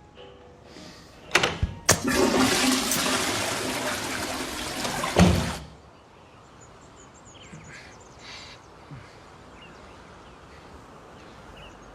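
Two sharp clicks, then a loud rush of water for about three and a half seconds that swells near the end and stops abruptly.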